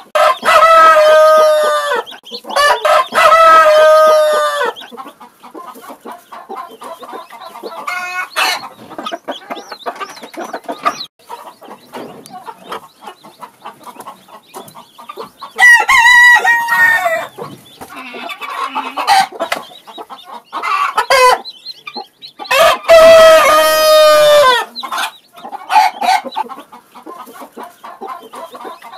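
Chickens calling: two long, loud drawn-out calls at the start, another about 16 s in and a fourth about 23 s in, with softer clucks and short high chick peeps in between.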